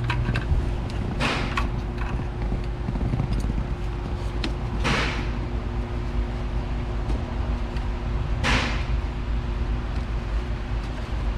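Spark plug wire boots being worked and snapped into place: three short scraping rubs and a few small clicks over a steady hum.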